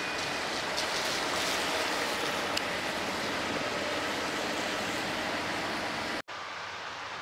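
Steady outdoor rushing noise, even and unbroken, dropping out for an instant about six seconds in at an edit.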